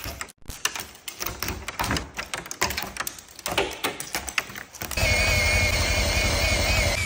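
Irregular knocks and clatter, then about five seconds in a power tool starts up and runs steadily with a wavering high whine.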